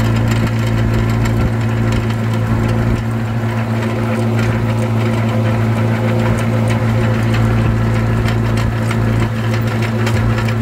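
Tractor engine running steadily, driving a PTO post hole digger whose auger is boring into hard, rocky ground, with a rattling clatter on top of the engine hum.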